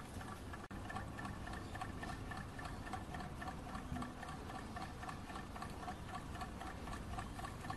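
STARPOWER QX6 mini hot-air Stirling engine running on its spirit-burner flame, freshly oiled: a fast, even mechanical ticking from its pistons, linkage and flywheel.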